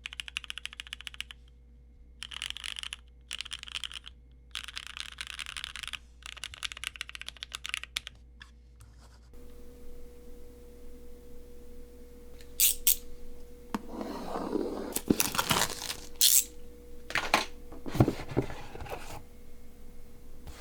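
Keychron Q1 mechanical keyboard with Cherry MX Black switches typed in short runs of fast keystrokes with brief pauses. About nine seconds in this gives way to packaging being unwrapped, with crinkling, rustling and sharp crackles of plastic and paper that are louder than the typing.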